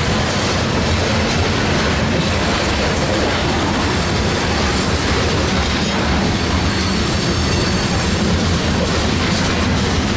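Freight train's covered hopper cars rolling past close by: a steady, loud rumble and rattle of steel wheels on the rails.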